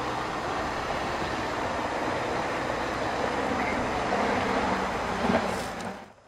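Mercedes-Benz GLE 250 d SUV driving, its four-cylinder diesel engine running under a steady wash of tyre and driving noise. The sound cuts off abruptly near the end.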